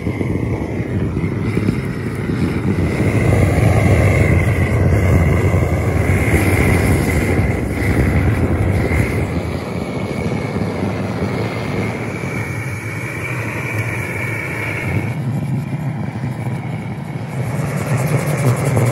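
Pump-pressurised liquid-fuel blowtorch burning steadily with a continuous roar and a high whistle riding over it, its flame singeing the hair off a cow's head.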